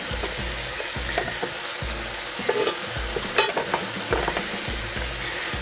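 Stir-fry of vegetables, chicken and prawns sizzling steadily in a very hot frying pan, with cooked rice just added. A few sharp clicks are heard through the sizzle.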